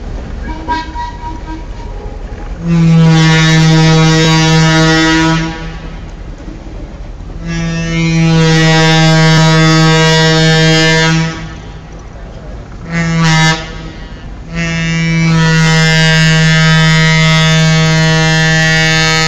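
Diesel locomotive air horn on the Nebraska Zephyr streamliner sounding the grade-crossing signal: two long blasts, a short one and a final long one, each a loud chord of several tones. Between the blasts the low rumble of the wooden interurban cars rolling slowly past is heard.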